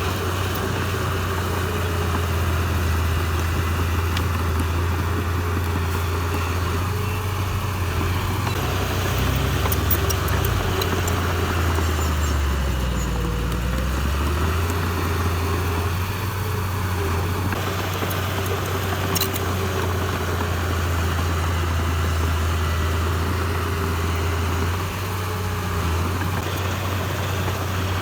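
Heavy diesel engine of earthmoving machinery running steadily with a deep drone; its pitch dips briefly about halfway through, then recovers.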